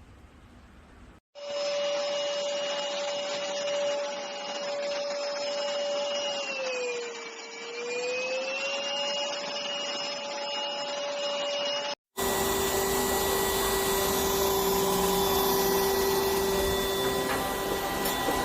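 Cordless stick vacuum cleaner's motor running with a steady whine, its pitch sagging briefly and recovering about halfway through. After an abrupt break about twelve seconds in it runs again at a lower steady pitch.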